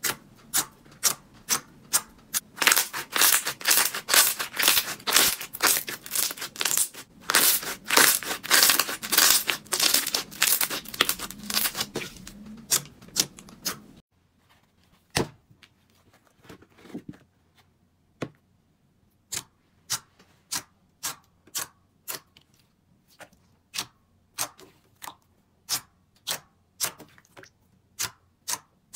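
Slime being worked by hand, giving sharp popping clicks. First come a few regular pops, then several seconds of dense crackling, then single pops at an even pace of about one and a half a second.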